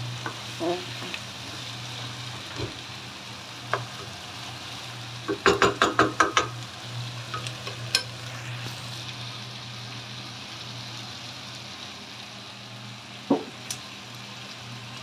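Peperonata, sweet peppers, sizzling as they cook in a pan. A utensil knocks against the pan in a quick run of about seven clinks some five seconds in, with a few single knocks later.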